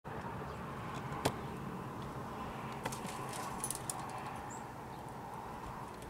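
A few sharp clicks and light rattles over a steady faint background hum: one click about a second in, another near three seconds, then a quick cluster just after. A small bird gives one short high chirp about four and a half seconds in.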